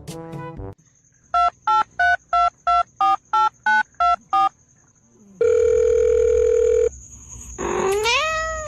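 Telephone keypad dialing: about ten short two-tone beeps, roughly three a second. They are followed by a steady tone of about a second and a half, then a rising sweep near the end.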